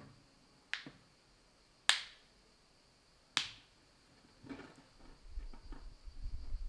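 Three sharp plastic snaps, a second or so apart, as a Samsung Galaxy A20e's plastic cover is pried loose around its edge and its clips let go. After them come softer scraping and handling noise.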